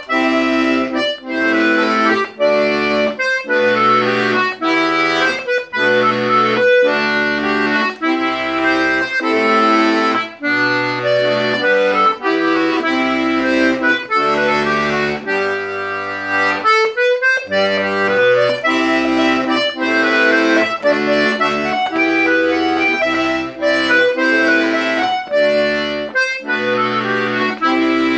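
Castagnari diatonic button accordion (melodeon) played solo: a melody of quick notes on the treble buttons over bass notes and chords from the left-hand buttons.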